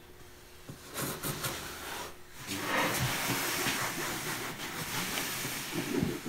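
Fiberglass cloth rustling as hands slide and smooth it against the inside of a wooden canoe hull. A short rustle comes about a second in, then a continuous hissing swish of cloth from about two and a half seconds in.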